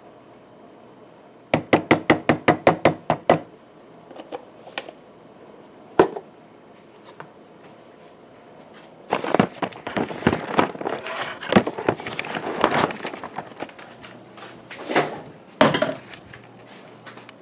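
Handling noises at a kitchen counter: a quick run of about ten sharp taps, then a single knock, then a few seconds of clattering and rubbing, with two more knocks near the end.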